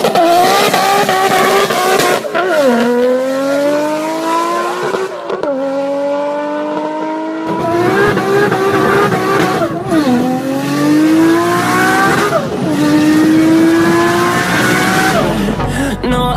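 Nissan Skyline R34's turbocharged straight-six accelerating hard through the gears: the engine note climbs, drops sharply at each of several upshifts, and climbs again.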